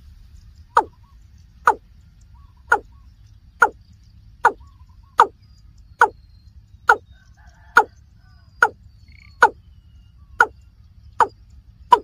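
Watercock calling: a short note that falls in pitch, repeated evenly a little more than once a second, over a faint low rumble.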